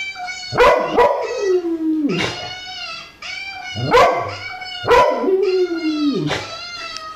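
Dog howling: a string of drawn-out howls that glide up and down in pitch, starting about a second apart, broken by short higher yelps and whines.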